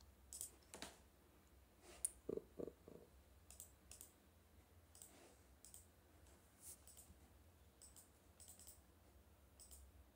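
Faint, scattered clicks of a computer mouse, with a few duller knocks about two seconds in, over a steady low hum.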